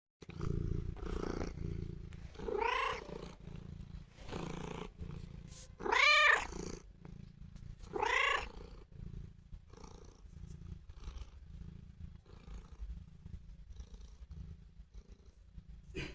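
Domestic cat purring steadily, a low pulsing rumble from its throat, the sound a cat makes when it is affectionate. Three short pitched calls from the cat break through about three, six and eight seconds in; the middle one is the loudest.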